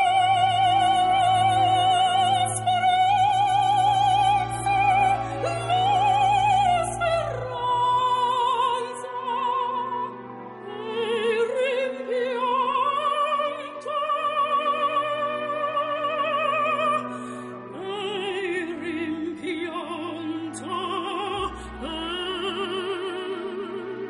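Operatic singing with a strong, wide vibrato on long held notes, over instrumental accompaniment.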